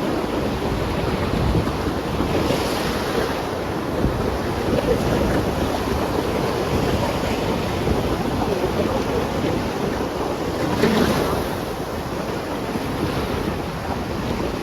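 Wind buffeting the microphone over the steady wash of sea surf, with waves surging louder about two seconds in and again about eleven seconds in.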